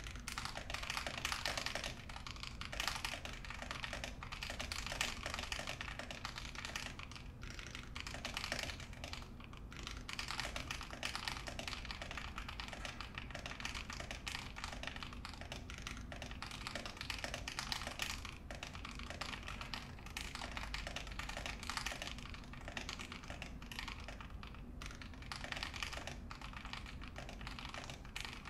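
Steady typing on a custom 60% mechanical keyboard built with lubed Fekker Holy Panda tactile switches, an aluminium plate and a KBDFans 5Degree acrylic case. The keystrokes come fast and without a break, except for a couple of brief pauses.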